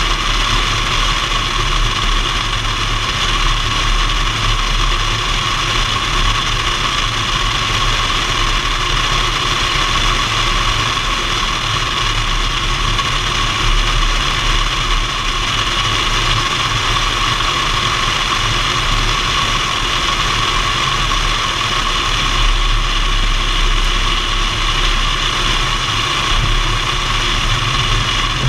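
Piper PA-28 Warrior's four-cylinder Lycoming engine and propeller running steadily, mixed with rushing airflow, heard from a camera mounted under the tail.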